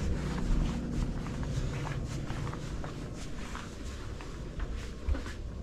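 Footsteps climbing carpeted stairs and walking across a wooden floor, with small irregular knocks and clicks over a low steady rumble.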